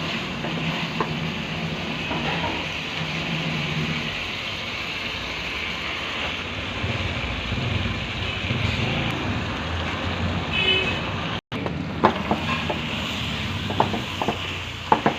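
Chicken sukha masala sizzling in a pan, a steady hiss over a low rumble. After a cut about eleven seconds in, a spatula knocks and scrapes against the pan as the masala is stirred.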